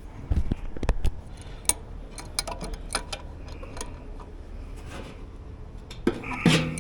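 Hand tools clicking and knocking on the metal of a blower motor and wheel: a cluster of sharp knocks in the first second, scattered ticks and taps after, and another louder clatter near the end.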